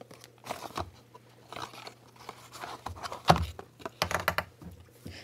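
Handling noises from a small foam sponge filter and its thin cardboard box: rustling, crackling and tapping, with one sharper knock about three seconds in.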